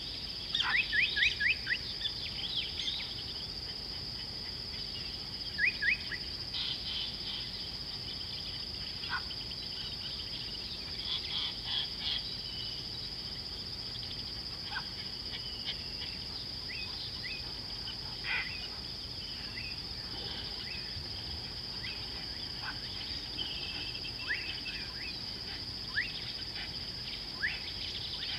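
Small birds chirping over a steady high-pitched insect drone. Quick downward-sliding chirps come in a flurry about a second in and again around six seconds, with scattered single calls after that.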